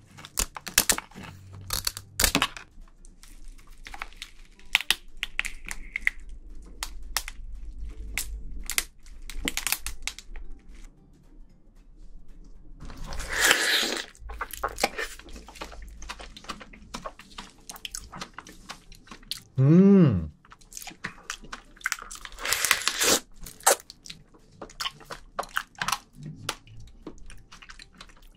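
Close-miked eating of soy-sauce marinated raw crab: the shell cracks and crunches in scattered sharp clicks, and there are two longer wet sucking slurps as the meat is drawn out of the shell. About two-thirds through there is a short hum that falls in pitch.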